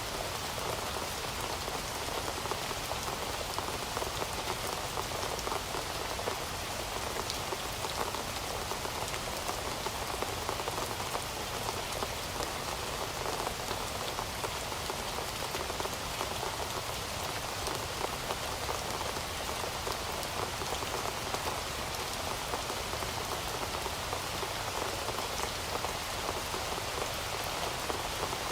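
Steady rain falling on a surface, with many single drops heard as fine ticks over an even hiss.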